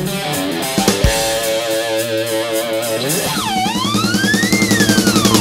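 Rock music with electric guitar and drums. A little past halfway, a high lead note slides down, climbs and slides back down.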